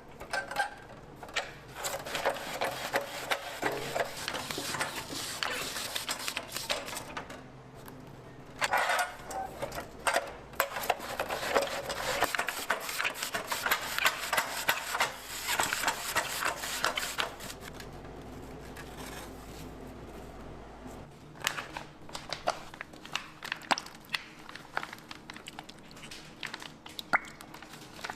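Cooking at a burger stall: dense crackling and clicking for most of the first two-thirds, dipping briefly, then scattered knocks and clicks from utensils. A steady low hum runs underneath.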